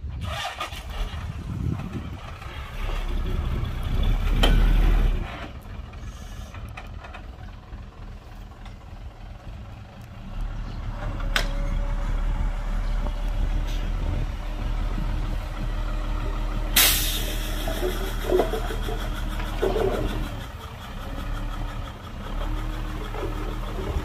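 Heavy diesel earthmoving machinery working. The engine load rises a few seconds in, drops back, then stays high again from about ten seconds in. A short, sharp hiss comes about seventeen seconds in.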